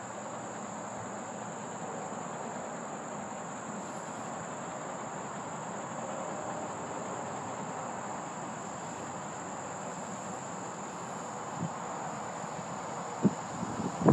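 Steady high-pitched insect chorus, with a soft even hiss underneath and a couple of short bumps near the end.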